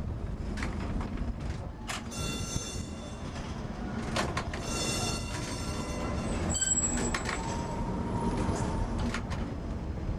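Electric street tram running on street track, a steady rumble with its steel wheels squealing high in two stretches on a curve, and a few sharp knocks from the wheels over the rails.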